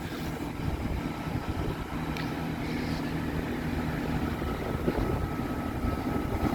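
Class 166 diesel multiple unit's diesel engines running steadily, a low hum with a faint high whine above it, getting a little louder toward the end.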